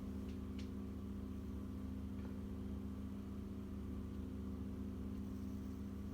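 A steady low mechanical drone with a constant hum, with a few faint clicks in the first couple of seconds.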